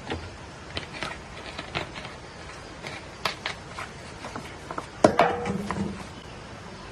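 Dry sticks and twigs cracking and snapping in a series of irregular short clicks, with a louder cluster of cracks about five seconds in.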